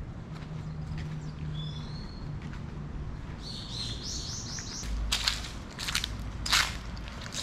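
A small bird chirps, then calls a quick run of about six high notes around the middle. After that come several sharp crunches, the loudest near the end: footsteps on dry leaves and grit.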